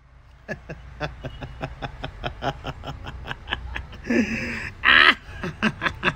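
A person laughing hard in a long run of quick "ha" pulses, about four or five a second, broken by two louder, higher squealing laughs about four and five seconds in.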